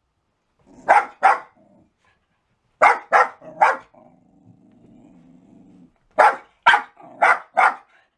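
A small terrier barking in short sharp barks, two, then three, then four in quick succession, with a low growl between the second and third groups.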